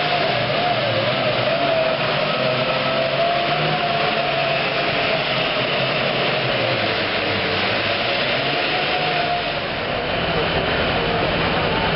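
Super Farm class pulling tractor's turbocharged diesel engine running hard at high revs, a loud, steady sound with a wavering pitch, easing briefly about ten seconds in.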